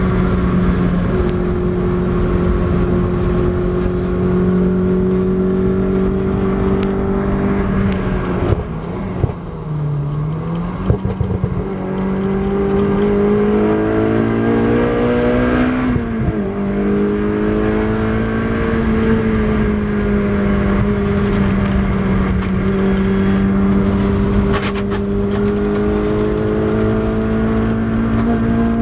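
Naturally aspirated Honda K24 four-cylinder with individual throttle bodies, heard from inside the Lotus Exige's cabin, pulling hard on track at a steady high pitch. About eight seconds in it eases off and the pitch drops, with a few sharp knocks. It then climbs back up, changes gear with a sudden step in pitch about sixteen seconds in, and runs on steadily.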